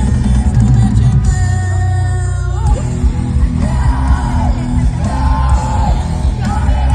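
Live rock band playing loud music, with a singer's sung and yelled vocals over it.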